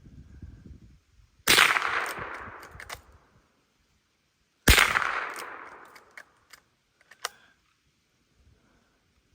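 Two shots from a Marlin 39A lever-action .22 rimfire rifle, about three seconds apart, each with a tail that dies away over a second or so. A few light clicks follow the second shot.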